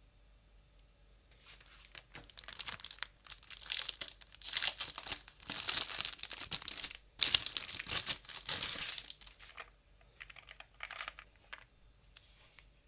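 Keyboard packaging being unwrapped: crinkling, crumpling and tearing, heaviest for several seconds, then a few softer rustles near the end.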